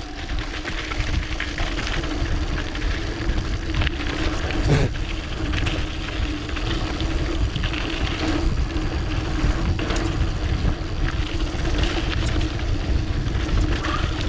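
Wind rumbling on an action camera's microphone while a mountain bike rolls fast down a dirt trail, with tyre noise, chain and frame rattles and a steady hum underneath. One sharp knock about five seconds in.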